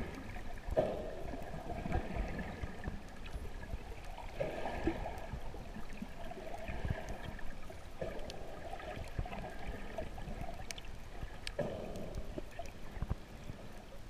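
Muffled underwater water noise picked up by a camera held below the surface, swelling and easing every couple of seconds.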